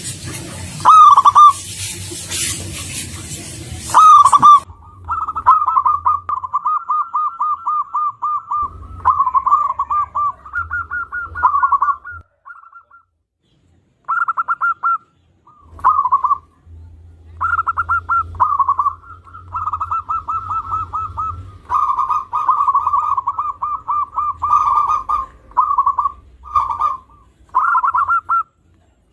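Zebra dove (perkutut) cooing over and over: strings of fast staccato notes in short phrases with brief pauses between them. A loud hiss sits under the first two phrases and stops about four and a half seconds in.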